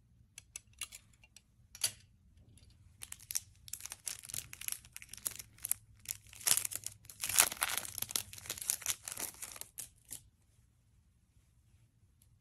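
Thin clear plastic sleeve crinkling and rustling as hands open it and pull out a microfiber lens cloth: a few light crackles at first, then several seconds of dense crinkling that stops abruptly.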